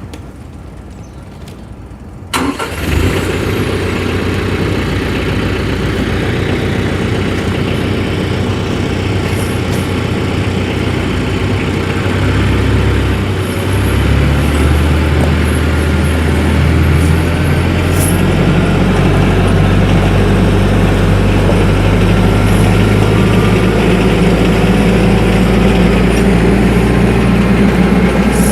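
TYM 474 compact tractor's diesel engine starting about two seconds in, then running steadily, its note changing partway through.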